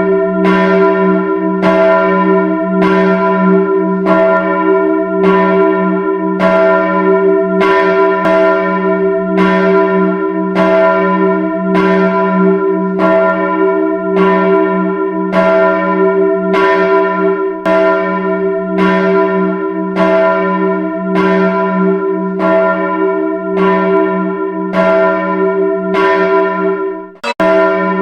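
A single church bell struck over and over, about once a second, each stroke ringing on into the next at the same pitch. The ringing breaks off briefly about a second before the end, then resumes.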